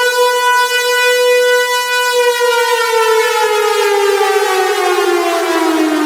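Siren wail, one loud pitched tone held steady for about two seconds and then falling slowly and continuously in pitch.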